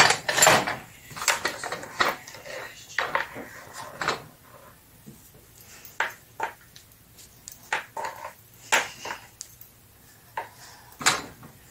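Plastic cling wrap crackling as it is pulled from its dispenser box for about the first half second. After that come scattered light knocks and rustles as hands break apart and handle pie-crust dough in a plastic mixing bowl.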